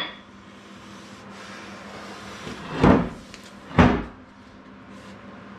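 Two hammer blows on a rust-seized part of an old arbor press, a little under a second apart, each a sharp knock with a short ring, struck to drive the part out.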